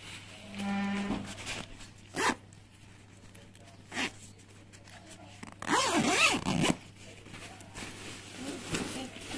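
Zipper of a Naturehike CW280 down sleeping bag being drawn: a short, even zip about half a second in, a couple of clicks, then a louder, longer zip about six seconds in whose pitch wavers as the pull speeds and slows, mixed with rustling of the bag's nylon shell.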